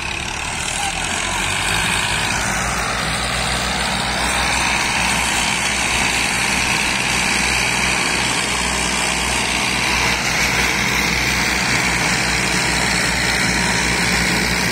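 Massey Ferguson 260 tractor's three-cylinder diesel engine running hard under heavy load, hauling a trolley piled with bricks. A loud, steady drone that builds over the first couple of seconds and then holds.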